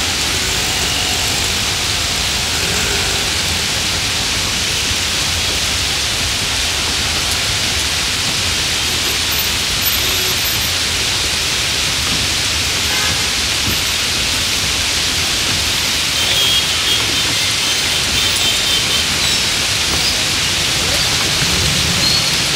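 Steady hiss of heavy monsoon rain, with a low rumble of traffic underneath.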